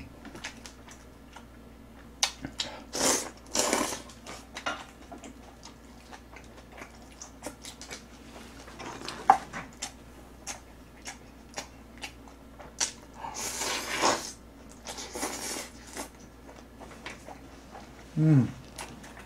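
Someone eating with chopsticks: sharp clicks of chopsticks against the metal pan and dishes, chewing, and several slurps of Jjapaghetti black-bean noodles lasting about half a second each. A short hummed 'mm' near the end.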